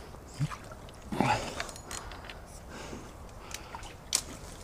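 Small water splashes and knocks around a kayak, with a few sharp clicks scattered through; the loudest comes about a second in.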